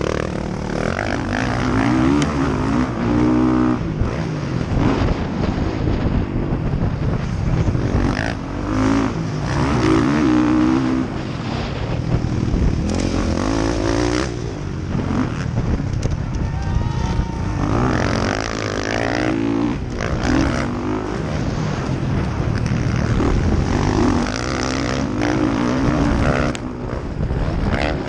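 Motocross bike engine revving hard and falling off again and again, its pitch climbing and dropping every couple of seconds through the corners and straights, over a heavy low rumble of wind on the microphone.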